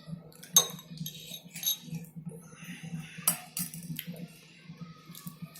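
Spoon, glass and jars being handled: several sharp, irregular clinks of metal and glass, over a low steady hum.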